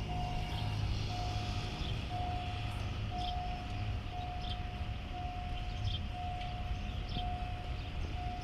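Diesel train running with a low steady rumble as it departs, while a single-pitched warning tone beeps on and off about once a second.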